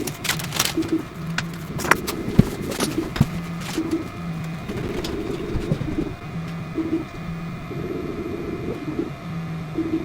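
Stepper motors of a Flashforge Adventurer 3 Lite 3D printer humming as it prints a test cube. The hum comes in short stretches that start and stop and shift pitch as the head changes moves. A few sharp clicks sound in the first three seconds.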